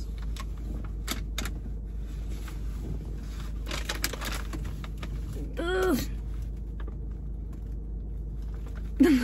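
Scattered clicks and rustles from handling a paper takeout bag and food containers, busiest about four seconds in, over a steady low hum in a car's cabin.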